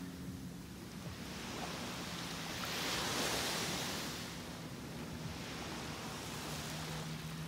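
Small waves washing onto a sandy beach, the surf swelling to its loudest about three seconds in. A faint, steady low hum runs underneath.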